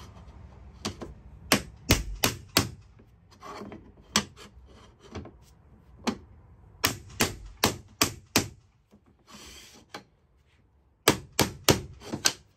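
Hammer striking a tapping block against the edge of a vinyl floor plank in short runs of sharp knocks, about three a second with pauses between runs, driving the plank over to close a gap in its joint.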